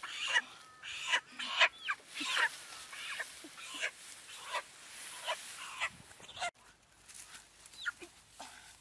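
Chickens squawking over and over in short, harsh calls, the distress cries of birds held upside down by their legs. The calls come about every half second, then after a brief break grow fainter and sparser.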